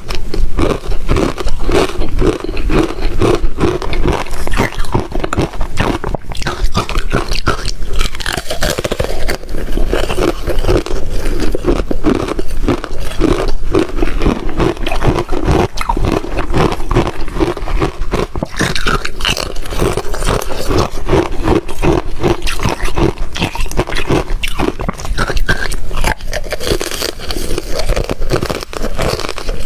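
Close-miked biting and chewing of rectangular ice chips dipped in matcha: continuous, dense crunching and crackling of ice being crushed between the teeth.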